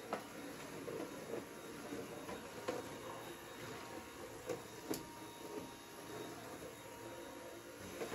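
Scattered light clicks and knocks from household chores over a steady background noise, the sharpest click about five seconds in.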